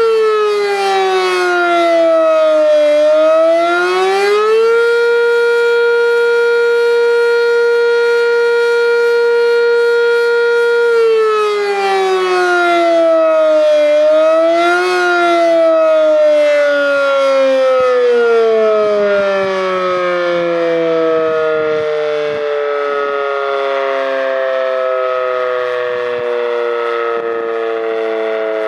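Sentry 10V electromechanical fire siren sounding on test. Its tone dips and climbs back, holds steady for several seconds, dips again, then winds down in a long falling glide through the second half.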